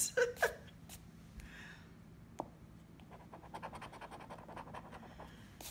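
A coin scraping the coating off a scratch-off lottery ticket in quick, short strokes. It starts about three seconds in and goes on for roughly two and a half seconds.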